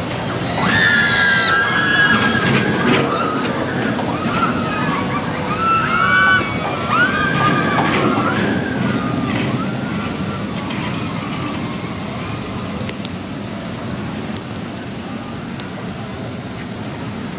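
Riders screaming as a steel roller coaster train plunges down a vertical drop and runs through its loops, over the rumble of the train on the track. The screams die away after about ten seconds, leaving the train's rumble slowly fading.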